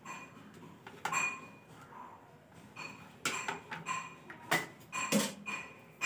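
Handling of hand tools and wire: several short clicks and light metallic clinks, spaced a second or so apart, some with a brief ring.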